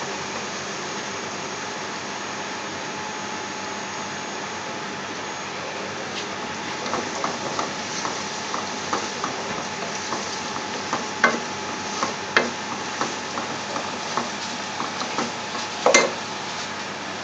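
Chopped onion, garlic, ginger and whole spices sizzling steadily in hot oil in a metal pot, stirred with a wooden spoon. From about six seconds in the spoon gives scattered knocks against the pot, the loudest near the end.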